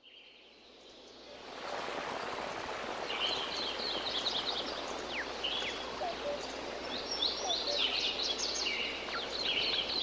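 Tropical jungle ambience that fades in over the first second or two: a dense steady hiss of background noise, with many birds chirping and calling in short, quick phrases from about three seconds in.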